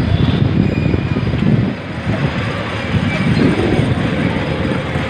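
Small kiddie amusement train rolling along its narrow-gauge track, a continuous uneven rumble and rattle heard from aboard the ride.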